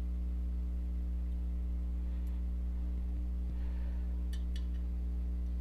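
Steady electrical hum, with a few faint small clicks from the metal parts of a Chris Reeve Sebenza folding knife being handled and fitted during reassembly: one a couple of seconds in and a quick run of three or four about four and a half seconds in.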